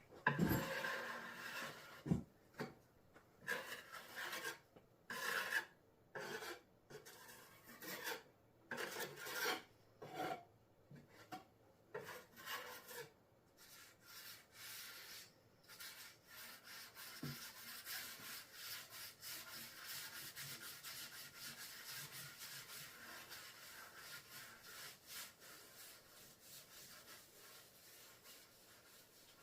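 A blade spreading and scraping Henry Feather Finish cement slurry across a tabletop: a run of separate scraping strokes, then a softer, more continuous scraping through the second half.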